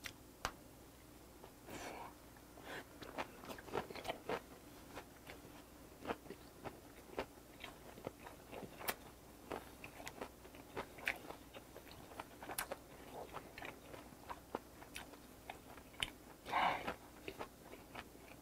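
Close-miked chewing of a mouthful of fermented skate (hongeo) with boiled pork and kimchi: many small wet clicks and crunches from the mouth, with a breath out about two seconds in and another near the end.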